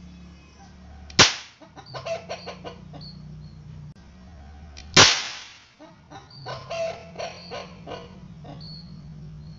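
Homemade match-head-powder mini cannon firing twice, two sharp bangs about four seconds apart, each followed by a scatter of small clicks and knocks.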